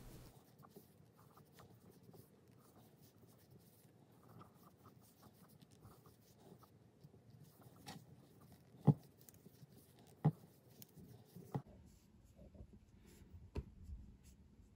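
Faint rustling and scraping of a 5 mm crochet hook working chunky plush yarn. There are four sharp taps in the second half, the first the loudest.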